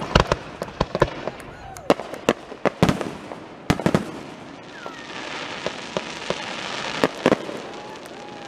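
Aerial fireworks going off: a rapid series of sharp bangs and pops through the first four seconds, then a hissing crackle from about five to seven seconds in, with more bangs around seven seconds.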